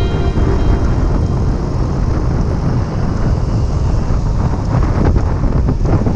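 A vintage 1966 Vespa scooter's small two-stroke engine running under way, largely buried in heavy wind rush over a handlebar-mounted microphone.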